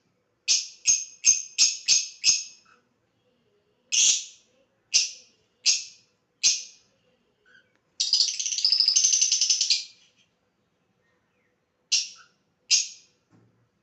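Lovebird giving short, shrill high-pitched chirps, a quick run of five at first and then single calls, with about two seconds of rapid continuous chatter in the middle.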